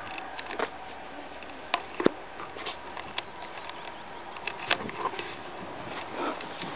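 Faint whine of mosquitoes buzzing, with scattered light clicks and rustles as feet move through tall grass.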